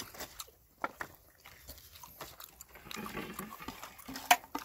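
Eating sounds: chewing and fingers picking at food on a plate with small clicks, then a stretch of scraping rustle and a couple of sharp clacks of a plate being handled near the end.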